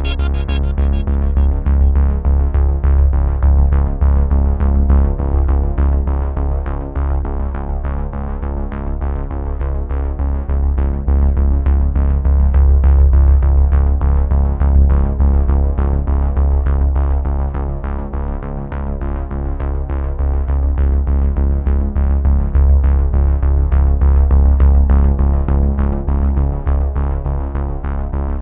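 Synthesizer-led background music with a heavy, steady bass and an even pulse.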